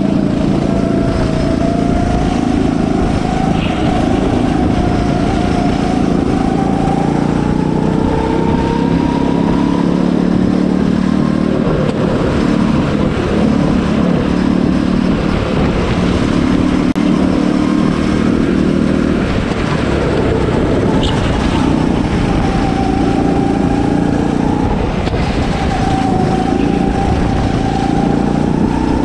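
Go-kart's small engine running at speed, heard onboard; its pitch climbs slowly, sags and climbs again several times as the kart accelerates out of corners and slows into them.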